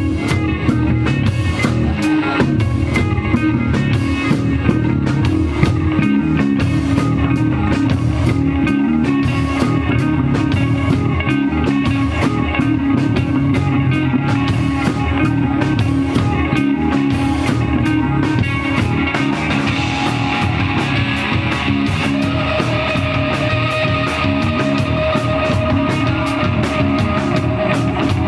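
Instrumental psychedelic rock played live by a trio: electric guitar, electric bass and drum kit, with steady drum hits under the guitar and bass. In the last few seconds a long held high note rings over the band.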